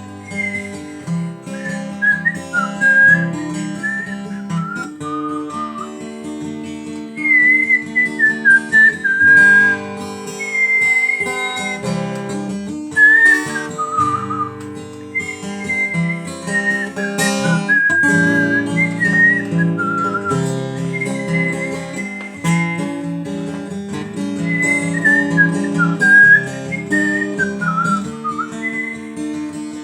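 A person whistling a gliding melody over acoustic guitar chords, an instrumental passage of a song.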